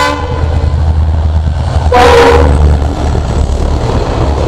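Passenger train passing a railway level crossing, with a steady low rumble. About two seconds in, a horn gives one short, loud blast.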